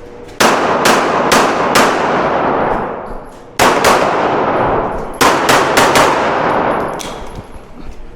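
Handgun shots fired in quick strings during a practical shooting stage: a run of four about half a second apart, a pause, then further groups of shots after short gaps, with fainter shots near the end. Each shot trails off in echo.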